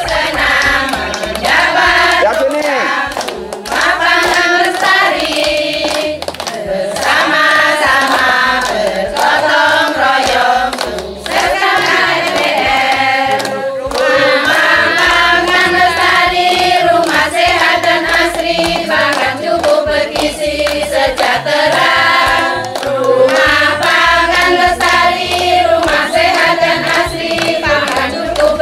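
A group of women singing together while clapping their hands.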